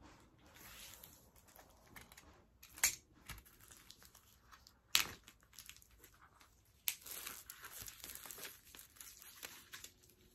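Clear plastic wrap being torn and peeled off a cardboard LP-style sleeve, crinkling, with sharp crackles about three, five and seven seconds in and steadier crinkling near the end.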